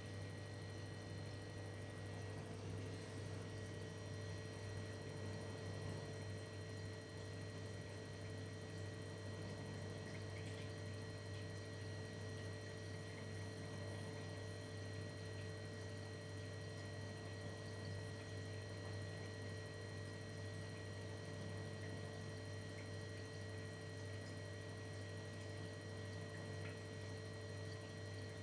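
Steady electrical hum with a few faint high whining tones over low hiss, unchanging throughout; no distinct events stand out.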